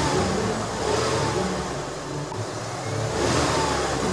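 Vehicle engine sound effect revving in repeated surges, as a stuck ambulance strains to drive out of a water-filled hole.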